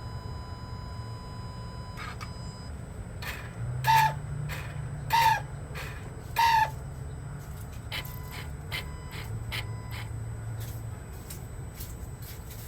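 A 2020 vehicle making its recurring noise: three short, loud chirps about a second apart, each dipping slightly in pitch, over a steady low hum with faint scattered ticks. The dealer calls the noise nothing to worry about.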